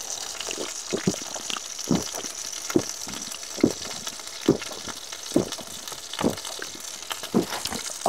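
A person gulping down a drink, about eight swallows in a row, roughly one a second.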